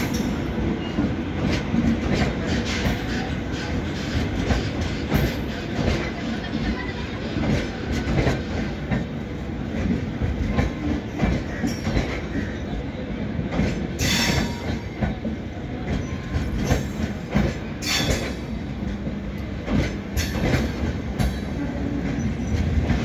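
Indian Railways LHB passenger coaches rolling past along the platform, their wheels clacking over rail joints, with a few brief high-pitched wheel or brake squeals about two-thirds of the way through.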